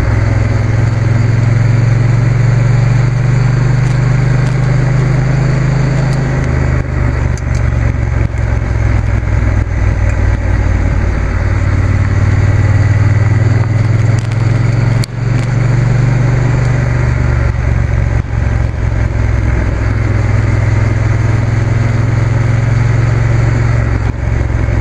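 Triumph T120 parallel-twin motorcycle engine running under way on the road. Its note drops and rises twice as the throttle and revs change through the bends.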